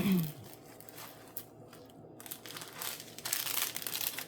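Product packaging crinkling and rustling as it is handled, louder for about a second near the end.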